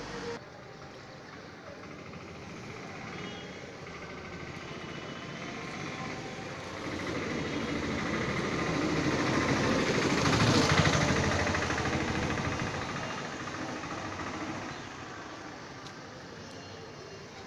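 A motor vehicle passing close by: its engine noise grows louder over several seconds, peaks about ten seconds in, then fades away.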